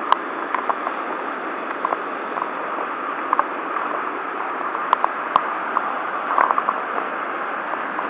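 Waterfall crashing into a mountain stream swollen after a typhoon: a steady, even rushing, with a few faint taps on top.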